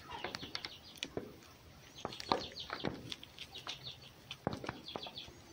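Red fox chewing a rat: wet crunching and clicking of teeth on bone and flesh at uneven intervals, the loudest crunches about two and four and a half seconds in, with short high squeaks mixed in.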